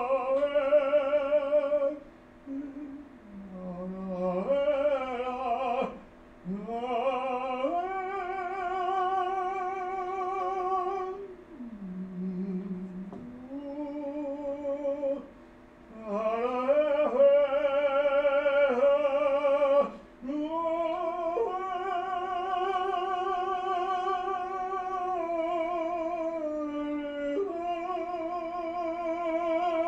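Solo operatic voice singing long sustained phrases with wide vibrato, sliding up into each held note, with short breaths between phrases.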